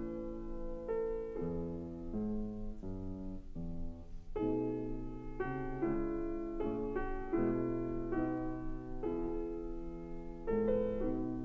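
Slow piano music, one chord or note after another, each held for about half a second to a second.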